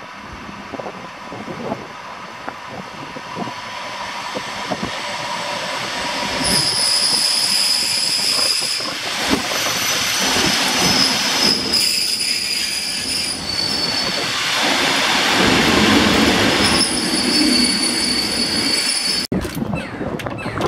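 EN57 electric multiple unit running in along the platform, its rolling noise growing louder as it comes close. From about six seconds in, a high-pitched squeal comes and goes several times as the train slows to a stop. The sound cuts off suddenly near the end.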